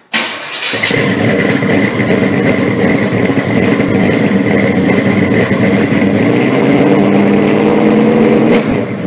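A loud vehicle engine running steadily with some revving, ending in a quick fade near the end.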